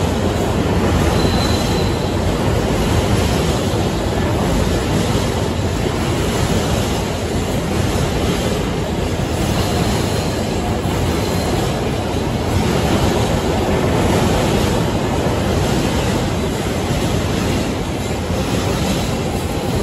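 Freight train of empty container flat wagons rolling past at steady speed: a continuous rumble of steel wheels on rail, with a few brief faint high wheel squeals.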